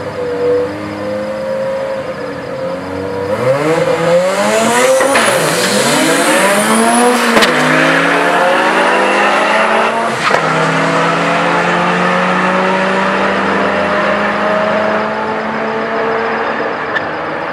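Drag-racing Mazda 323 with a turbocharged 13B rotary engine idling at the start line, then launching at full throttle and revving up through the gears, with gear changes about 5, 7 and 10 seconds in, while a second car runs alongside. The engine note then holds steadier and slowly fades down the strip, with a faint high whistle above it.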